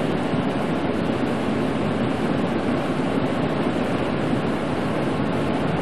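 Steady cabin noise of a pickup truck driving on a snow-covered highway: tyre and engine noise mixed with the windshield defroster fan blowing.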